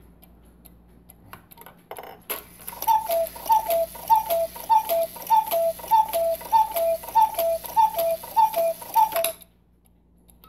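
Antique German cuckoo clock striking the hour: its two wooden bellows pipes sound the two-note cuckoo call, high then low, about eleven times in a row, over the whirr of the striking train. The clock's faint ticking comes first, and the calls stop suddenly about a second before the end.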